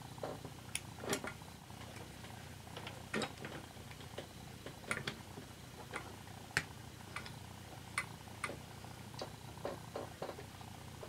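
Small, irregular clicks and taps from a tiny toy DC motor being put back together by hand: the plastic brush end cap and metal lead tabs pressed and bent back onto the metal can after the brushes were cleaned. A low steady hum runs underneath.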